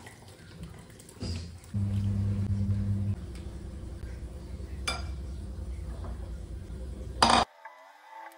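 Plastic ladle scraping and clinking against a nonstick wok and dishes as soup is ladled out, with a low hum for over a second about two seconds in and a sharp knock near the end. Soft background music takes over for the last second.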